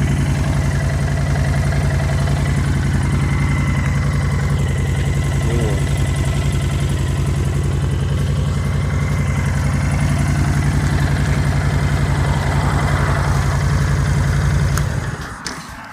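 Honda Fury VT1300's V-twin engine idling steadily, then stopping near the end.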